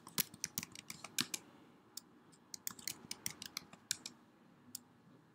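Typing on a computer keyboard: irregular key clicks in two short runs with a brief lull between them, as a password is entered and then confirmed.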